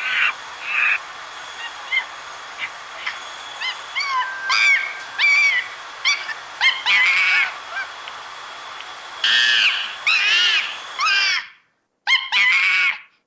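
Monkeys calling: a series of short, high-pitched squeaky calls that arch up and down in pitch, some in quick runs of several a second, over a faint steady hiss. The sound cuts off abruptly about eleven seconds in, and a fresh burst of similar calls follows.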